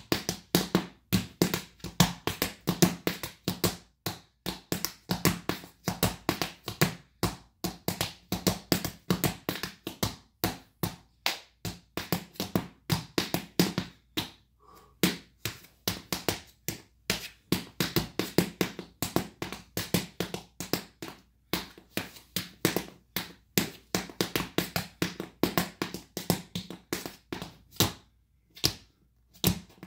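Tap shoes' metal taps striking a portable tap floor in quick, uneven rhythms of sharp clicks and heel drops, without music, with brief pauses about halfway through and near the end.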